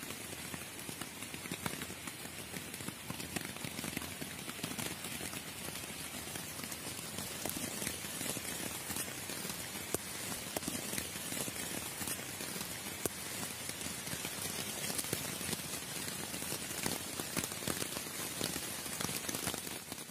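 Steady rain falling, an even hiss with many single drops ticking through it.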